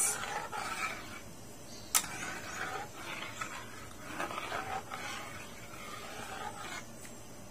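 Metal ladle stirring coconut milk and corn kernels in a metal wok: irregular liquid swishing, with one sharp clink of the ladle against the pan about two seconds in.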